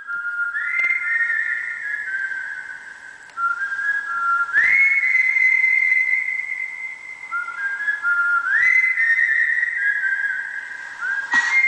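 Whistled melody played as a phone ringtone: a single clear tune that sweeps up into a held high note about every four seconds, then steps back down.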